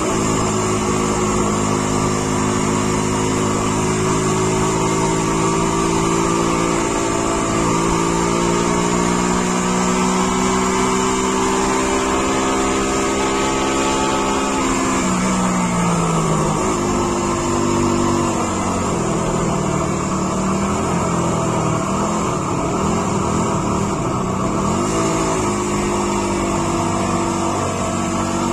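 Car engine heard from inside the cabin, pulling steadily with its pitch slowly rising, then dropping sharply about halfway and again near the end as it changes gear before climbing once more.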